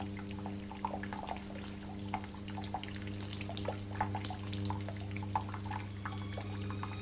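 Water dripping and trickling irregularly down a melting block of ice, over a steady low hum. High held tones come in near the end.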